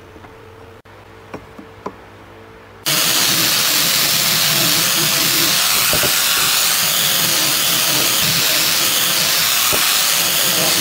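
A few light clicks of wood being handled, then about three seconds in an angle grinder fitted with a sanding disc cuts in loud and runs steadily, sanding a wooden beam.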